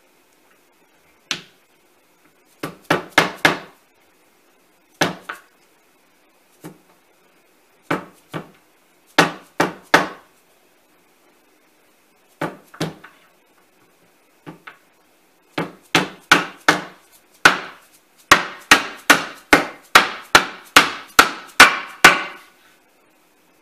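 Hammer striking wood in short, uneven groups of blows, then a steady run of about two blows a second over the last several seconds.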